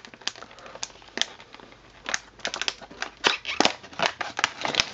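Stiff clear plastic blister packaging crackling and clicking as it is pried and pulled apart by hand, in a run of sharp irregular snaps that come thickest from about two to three and a half seconds in.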